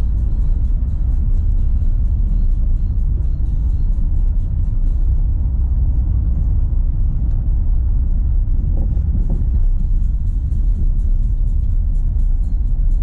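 Renault Sandero Stepway 2 driving on a dirt road: a steady low rumble of tyres and suspension on the rough surface.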